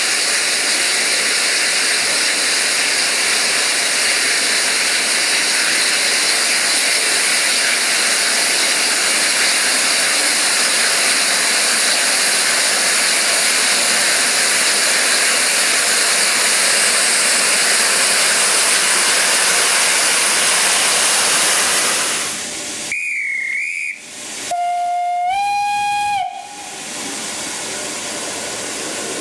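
LNER A4 Pacific No. 4464 'Bittern' giving off a loud, steady hiss of escaping steam as it approaches slowly. Near the end, after the steam stops, a short warbling high whistle sounds, followed by a steam locomotive's whistle held for about two seconds, its pitch stepping up slightly.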